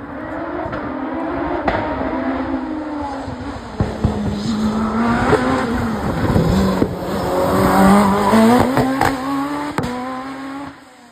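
Single-seater hillclimb race car's engine revving hard as it comes through the bends and passes close by, its pitch climbing and then dropping several times as it changes gear, with scattered sharp pops. It is loudest as it goes past and fades as the car climbs away near the end.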